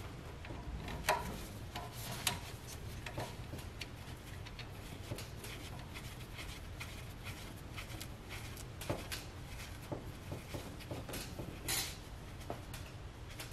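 Scattered light clicks and taps of metal as brake-line fittings are threaded into a master cylinder and worked with a wrench, over a steady low hum.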